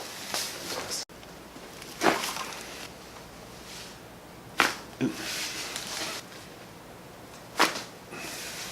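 Joints cracking under chiropractic adjustments: four sharp cracks a second or more apart, with rustling of clothing or body shifting on the treatment table between them.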